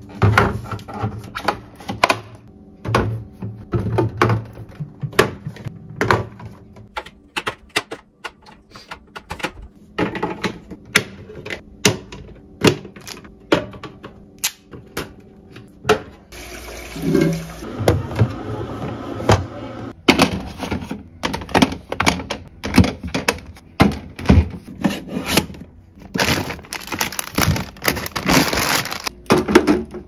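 Bottles and jars being set into the clear plastic door shelves and bins of a refrigerator: a steady string of light knocks and clacks of glass and plastic against plastic, with a few seconds of rustling near the end.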